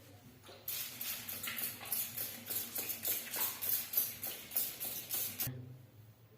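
Rapid, rhythmic slapping of hands on skin: percussive massage strokes, starting about half a second in and stopping abruptly near the end.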